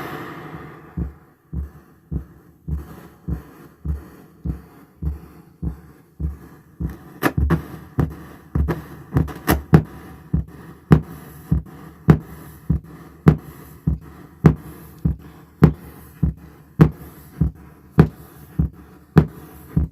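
No-input mixer feedback: the mixer's aux send looped back into its own channel makes a regular low electronic pulse a little under twice a second. From about seven seconds in, sharp clicks land on the beats.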